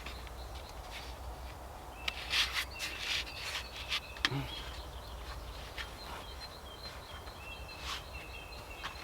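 Small songbirds chirping in short, high, repeated notes in two brief spells, over scattered rustling and clicking.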